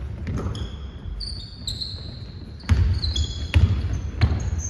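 A basketball bouncing on a hardwood gym floor, three dribbles in the second half, with sneakers squeaking on the court in short high chirps.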